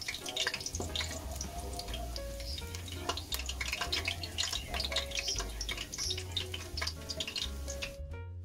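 Minced garlic sizzling and crackling in hot oil in a wok, under background music with a steady bass. The sound drops out briefly near the end.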